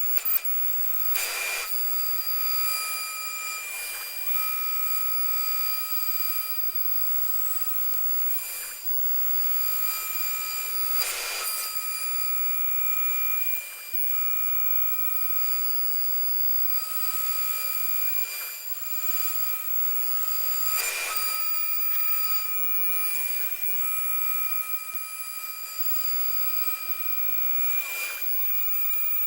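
CNC router running with a steady high whine whose pitch dips briefly every few seconds, with a few sharp knocks along the way.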